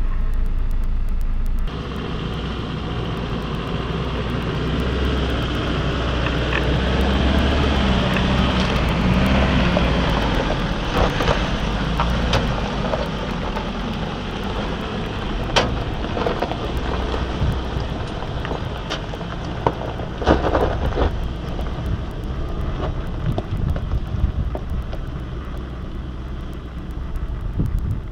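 Land Rover Defender's engine running at low revs as it crawls over rock, with sharp knocks and cracks from the tyres on stones. The sound fades out near the end.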